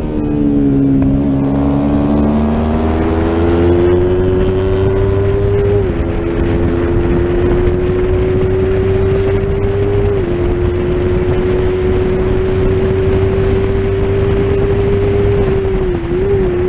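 Yamaha R25's parallel-twin engine at race speed, heard from on board the bike: the note climbs steadily as it accelerates out of a corner, dropping briefly at upshifts about six and ten seconds in, with a short dip near the end.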